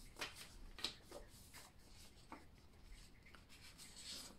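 Faint rustling of a stack of prop paper bills being handled and fanned out in the hands, a few soft, brief flicks of paper.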